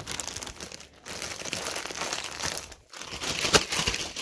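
Thin clear plastic packaging bag crinkling and rustling as hands pull it open to get a plush toy out, with two short breaks, about a second in and just before three seconds.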